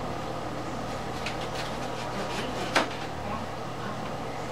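Kitchen knife chopping carrot and cilantro on a cutting board: a few scattered knocks, one louder about three seconds in, over a steady low hum.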